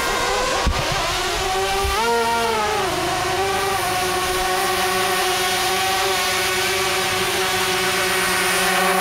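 Electric motors and propellers of small RC VTOL aircraft in hover, a steady whine. The pitch swells and dips about two seconds in, then holds nearly steady.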